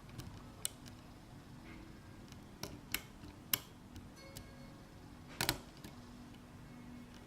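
Irregular small metallic clicks of a lock pick and tension wrench working the pins of a six-pin GERA (ISEO) euro half cylinder, about half a dozen ticks with the loudest, a quick double click, about five and a half seconds in.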